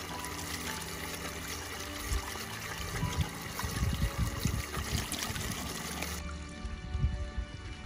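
Water trickling over soft background music; the water noise drops away abruptly about six seconds in.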